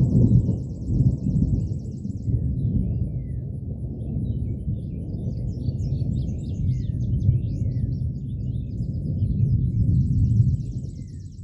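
Long rolling rumble of thunder, swelling several times and dying away about ten seconds in. Birds chirp and trill over it.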